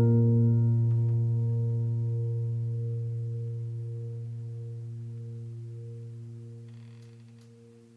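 Background piano music: one low chord struck at the start rings on and slowly fades away, dying out after about eight seconds.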